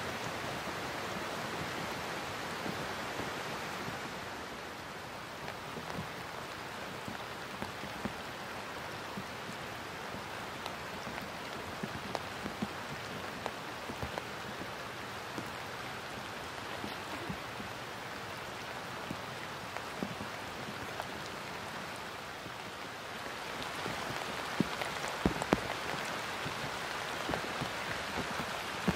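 Steady rain falling on water and grass: an even hiss dotted with small drop ticks, with a few sharper taps near the end.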